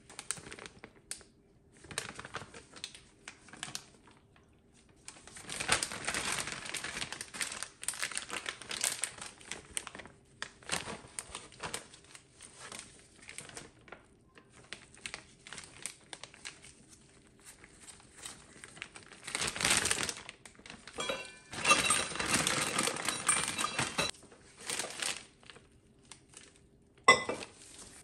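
Disposable plastic piping bag crinkling and rustling in gloved hands in irregular bursts as it is cut and a piping tip is fitted, with a single sharp tap near the end.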